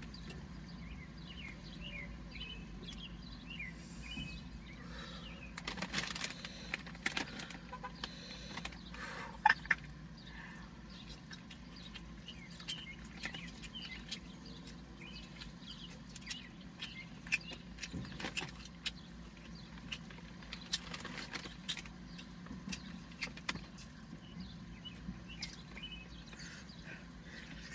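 Close-up eating sounds: biting into, tearing and chewing a whole rotisserie chicken, with scattered wet clicks and smacks and the paper napkins around it rustling, over a steady low hum inside a car.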